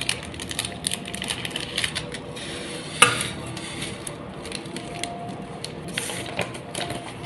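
Paper seasoning sachet and flour bag being handled and shaken over a stainless steel pot of boiled chicken skins: small crackly rustles and clicks, with one sharp knock about three seconds in.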